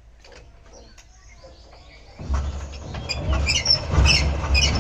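Power tiller's single-cylinder diesel engine being hand-cranked. About two seconds in it catches and starts running with a loud, fast low chugging that grows louder, with sharp ticking on top.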